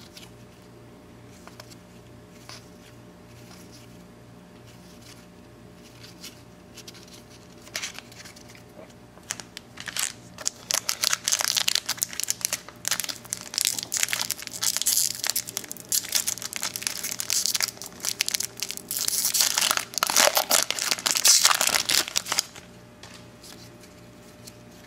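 A 1993 Donruss baseball card pack's shiny plastic wrapper crinkling and tearing as it is opened by hand. The crinkling starts about ten seconds in, is loudest just before it stops a couple of seconds from the end, and follows a quiet start.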